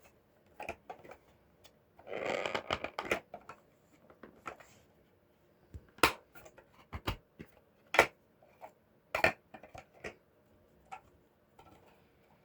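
Scattered clicks and knocks of a Wheelock RSS-24MCW fire alarm strobe and its cover plate being handled. There is a short rustle about two seconds in, then a few sharp clicks roughly a second apart in the second half.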